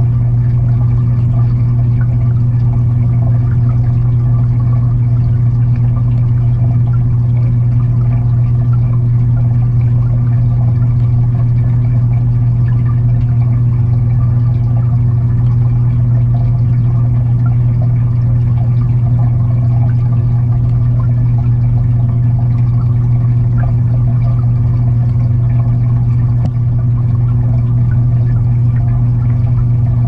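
Aquarium filter pump running, heard from underwater inside the tank: a loud, steady low hum with a faint, irregular trickle of water over it.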